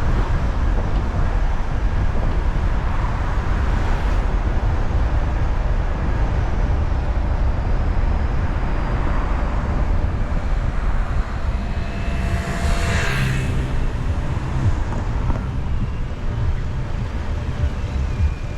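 Driving through city traffic: a steady low road and engine rumble, with a brief hissing whoosh about thirteen seconds in.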